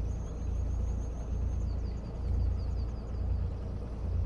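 Low, steady rumble of a small sailing yacht's engine as the boat motors slowly ahead.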